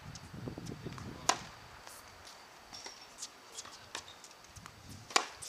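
Two sharp pops of a tennis ball being struck by a racket, about four seconds apart.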